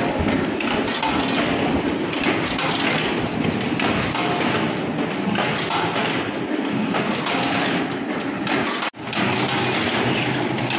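Honeycomb coal briquette press machines running, giving a dense, continuous clatter of thumps from the stamping punches and drive. The sound cuts out for an instant about nine seconds in, then resumes.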